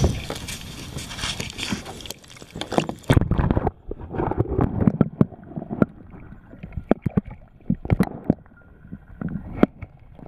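Water sloshing and splashing as a bass is released into a pond, heard through a waterproof camera held at the surface. About three seconds in the camera goes under and the sound turns muffled, with gurgling and scattered knocks and clicks.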